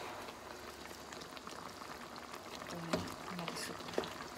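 Chicken feet adobo simmering in a pot as its last bit of sauce reduces down, stirred with a wooden spatula. A couple of knocks of the spatula against the pot come about three and four seconds in.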